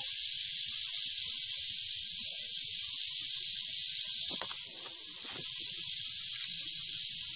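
Timber rattlesnake buzzing its tail rattle continuously, a steady high-pitched buzz that is not that loud: the defensive warning of a disturbed snake. A single sharp tap comes about halfway through, and the buzz eases briefly just after before picking up again.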